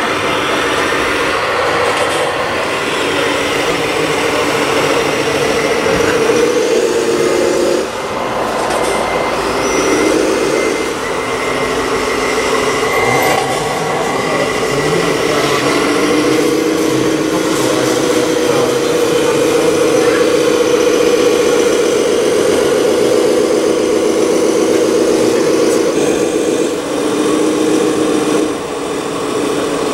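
Radio-controlled scale Scania four-axle tipper truck driving, its drive giving a steady mechanical hum that shifts in pitch several times as it changes speed.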